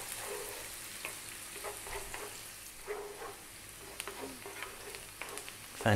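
Chopped onion, garlic and celery sizzling steadily in olive oil in a frying pan, with a wooden spoon scraping and clicking against the pan as it is stirred.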